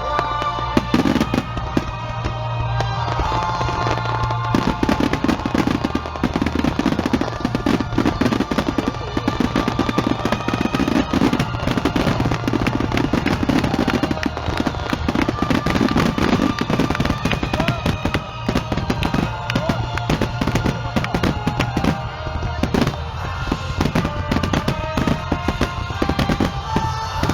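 Fireworks bursting and crackling in dense, rapid succession, with music playing over them.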